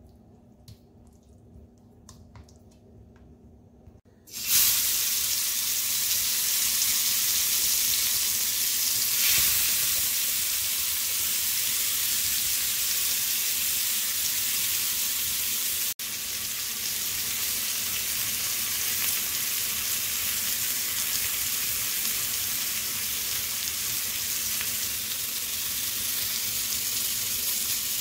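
Marinated chicken drumsticks sizzling in hot oil in a pan: a steady frying hiss that starts suddenly about four seconds in, after a quiet start.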